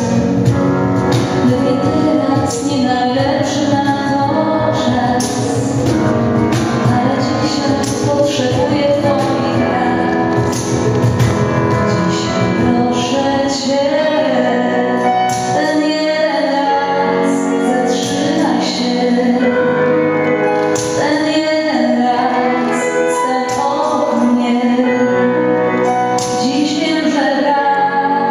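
Live music: a woman singing into a microphone, accompanied by a small string ensemble.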